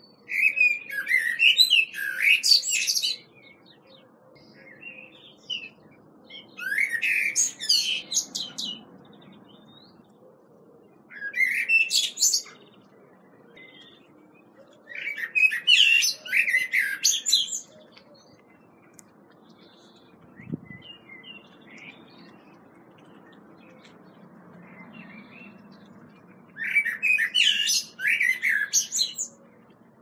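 A songbird singing five phrases of rapid, varied high notes, each two to three seconds long, with pauses of a few seconds between them.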